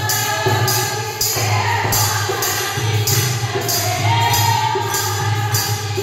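A group of women singing a Hindi devotional bhajan to a harmonium and dholak, with a steady beat of sharp percussive strokes on each beat, a little under two per second.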